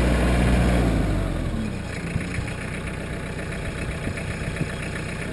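New Holland Boomer compact tractor's diesel engine running at raised revs, then dropping back about a second and a half in and running on steadily, lower and quieter, near idle.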